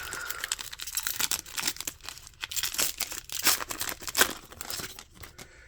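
A foil Pokémon trading card booster pack being torn open and crinkled in the hands: a dense, irregular crackle that dies away near the end.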